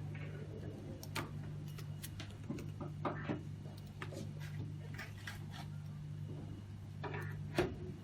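Scattered small clicks and light knocks from hands handling parts during an analyzer setup, over a steady low hum.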